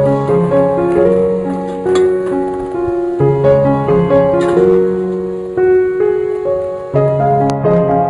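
Background piano music: a gentle melody of sustained notes over a repeating bass pattern.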